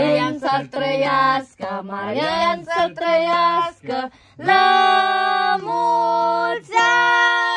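Several voices singing a birthday song together, unaccompanied, with long held notes in the second half.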